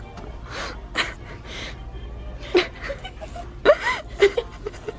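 Short breathy vocal sounds from a young woman: gasps and brief murmured or half-voiced bits, with a steady low hum underneath.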